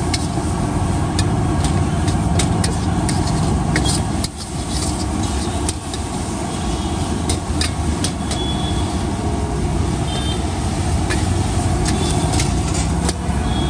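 Steel ladle scraping and clinking against a steel wok as gobi manchuri is stirred, with irregular sharp knocks, over a steady low rumble of road traffic.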